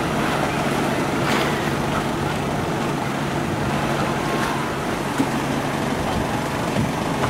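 Steady sea noise: waves washing against the rocks and wind, with a low steady hum underneath.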